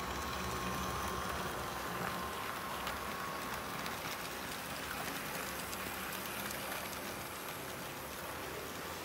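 H0-scale model freight train rolling past: a steady rattling rush of small metal wheels on the track with scattered light clicks at rail joints, and a faint whine from the locomotive's electric motor during the first few seconds.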